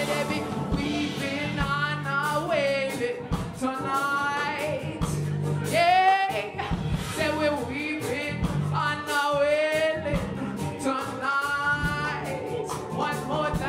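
Live band: a woman singing long, wavering notes without clear words over electric keyboard, bass guitar and drums.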